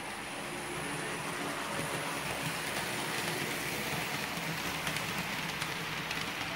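HO scale model train of ballast hoppers, most still on plastic wheels, rolling past close by: a steady rushing clatter of wheels on the rails, swelling a little in the first second and then holding even.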